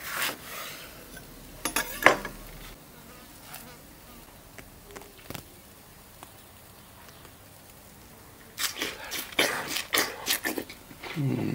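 A knife cuts into a whole lemon on a wooden cutting board, with a couple of sharp knocks of the blade on the board. Near the end come a run of wet, crunchy bites into a slice of fresh watermelon, closing with a low, falling 'mm'.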